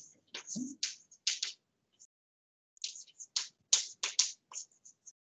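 Chalk tapping and scratching on a blackboard as symbols are written: a run of short, sharp strokes with a gap of about a second in the middle.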